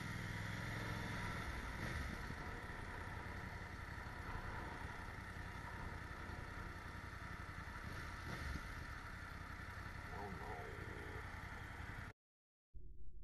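Steady wind rush and road noise on a motorcycle-mounted camera while riding, with the motorcycle's engine running underneath. The sound cuts out suddenly near the end, then comes back duller.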